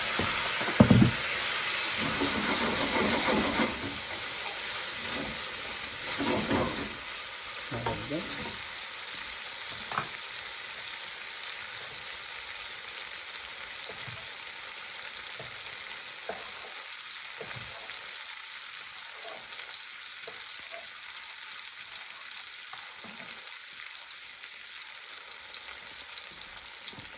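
Curry base of tomato paste in an aluminium pan sizzling on a gas hob just after hot water has been added: a loud hiss for the first few seconds that settles into a quieter steady sizzle. A few knocks in the first ten seconds, and faint taps later as chicken pieces are cut on a wooden chopping board.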